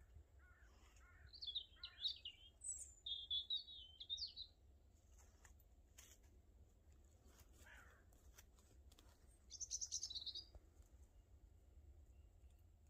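A small songbird sings faintly in short, quick, twittering phrases, several in the first few seconds and one more about ten seconds in, over a low steady rumble.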